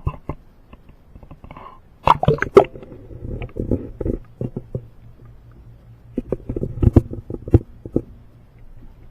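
Handling noise in a boat: irregular clicks and knocks, with louder clusters of thumps about two seconds in and again near seven seconds.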